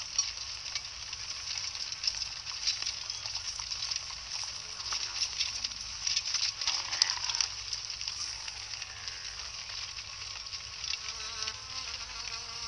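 Steady crackling, buzzing hiss of film background ambience, thick with small ticks. Soft held music tones come in near the end.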